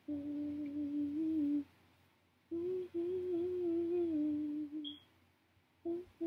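A woman humming a slow tune with her lips closed: two long held phrases with a pause between, then a few short notes near the end.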